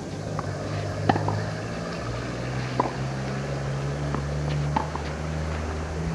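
Tennis ball struck by rackets during a rally: three sharp pocks, about two seconds apart, over a steady low hum.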